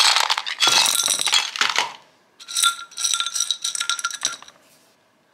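Small rocks poured from a container into a glazed ceramic pot, clattering and clinking against it for about two seconds. After a short pause comes a second run of clinks with a faint ring as the rocks are moved about in the pot by hand.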